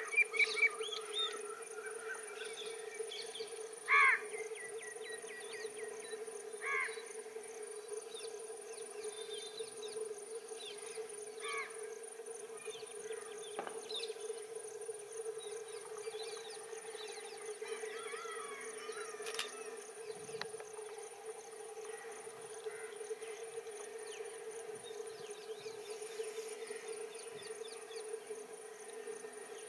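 Insects trilling steadily in a high, pulsing buzz over a steady hum, with birds chirping briefly a few times in the first seven seconds, loudest about four seconds in.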